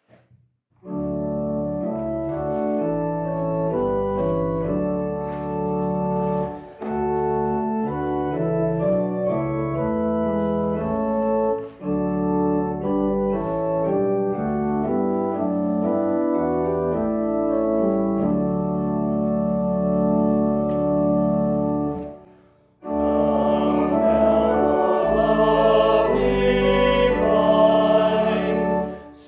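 Organ playing a hymn tune in sustained chords. It stops briefly, then the hymn starts again about 23 seconds in, with voices singing over the organ.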